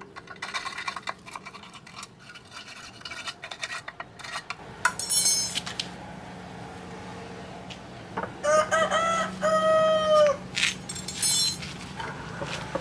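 A rooster crows loudly about two-thirds of the way in, one long call in several parts. Before it come light scrapes and clinks as metal bars are worked loose from a freshly cast cement stove in its aluminium basin mould.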